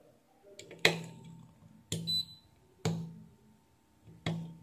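Multimeter probe tips clicking onto the pins of a 2SC2655 transistor on a power-supply board as its junctions are tested: four sharp taps about a second apart, each followed by a short low hum, with a brief high beep about two seconds in.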